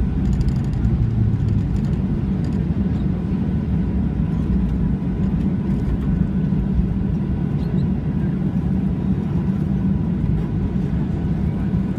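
Steady low rumble inside the cabin of a Boeing 737-800 during its landing rollout: CFM56-7B engines and the airframe rolling down the runway, with a faint steady whine.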